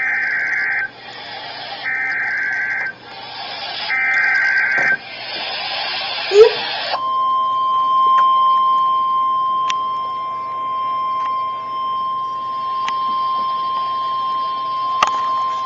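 Emergency Alert System header on NOAA Weather Radio: three short bursts of warbling, buzzy data tones (the SAME header coding the alert) separated by hiss, a moment of static with a sharp click, then the steady single-pitched weather radio alert tone that announces a warning.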